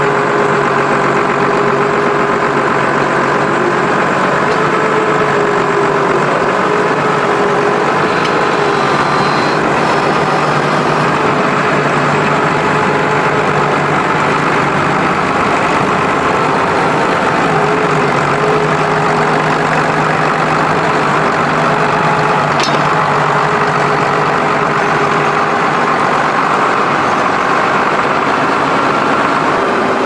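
Diesel farm tractor engine running steadily while it works a mounted reversible plough, with one short click about three-quarters of the way through.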